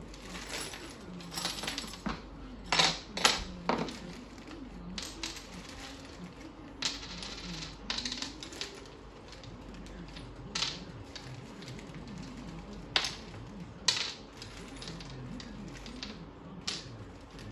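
Small metal screws and washers clinking against each other and a clear plastic hardware bag crinkling as the parts are tipped out and sorted by hand. The clicks are scattered and uneven, with a few sharper ones.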